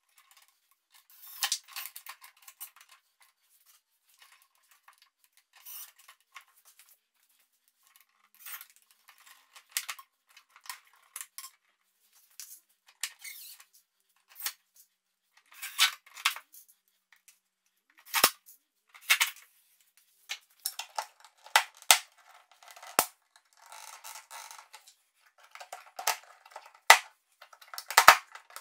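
Hard plastic clicks, knocks and scrapes from PVC pipes and plastic pipe clips being handled and pressed together, in scattered short bursts. Near the end come several loud, sharp snaps as the pipes are pushed into the clips.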